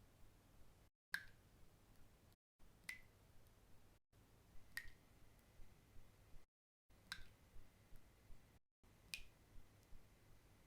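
Single water drops falling into still water, five of them about two seconds apart, each a sharp plink. One leaves a thin ringing tone that hangs for a few seconds.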